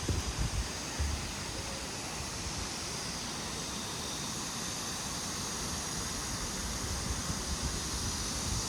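Steady rushing of a mountain stream flowing over rocks, with a few low wind thumps on the microphone in the first second.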